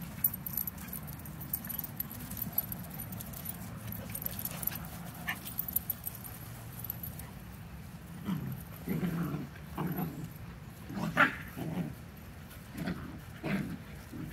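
Puppies play-fighting: fairly quiet at first, then from a little past the middle a run of short growls and yips, one every second or so, the loudest about three quarters of the way in.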